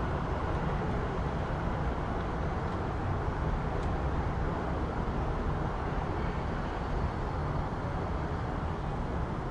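City street ambience: a steady rumble of traffic with no single event standing out.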